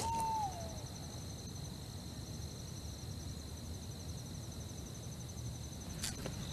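Quiet night-time outdoor ambience: crickets trilling steadily at a high pitch over a low rumble. A short falling whistle right at the start, and a single sharp click near the end.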